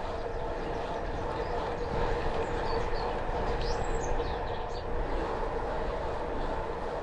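Riding noise of a gravel bike, picked up by a bike-mounted camera: tyres rolling on a paved path with steady rumble and wind rush, under a constant hum.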